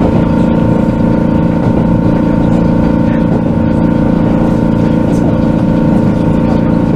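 Steady running noise heard inside a moving JR West 221 series electric train: a low rumble with an unchanging hum.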